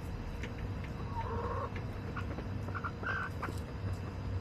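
Backyard hens clucking softly: a few short calls about a second in and again around three seconds in, over light ticks of pecking and scratching in straw litter.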